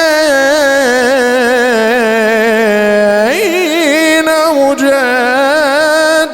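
A male radood chanting an Arabic lament unaccompanied, holding long drawn-out notes with wavering ornaments. About three seconds in, his voice sweeps sharply upward, then settles back into the held line.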